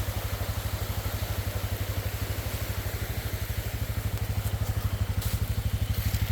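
Four-wheeler (ATV) engine idling with a steady, rapid low putter.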